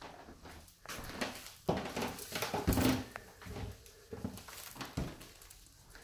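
Footsteps on a wooden floor with scattered knocks, the loudest knocks between about two and three seconds in.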